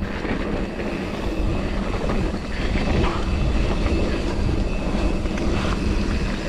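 Mountain bike rolling down a dirt trail: a steady rumble of tyres on dirt and wind buffeting an action camera's microphone, with the bike rattling over the ground.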